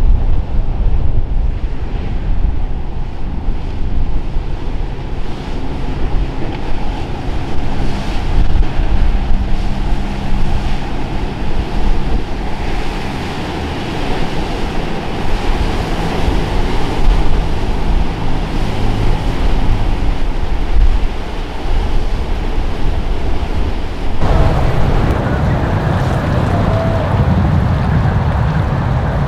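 Wind buffeting the microphone over breaking surf and the spray of a motor cruiser's hull crashing through rough inlet waves, with the low drone of its engines underneath. About 24 s in it changes abruptly to a steadier low rumble of a yacht cruising slowly on calm water, still with wind on the microphone.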